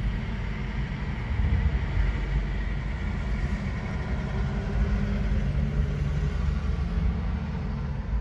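Road traffic passing, a steady low rumble.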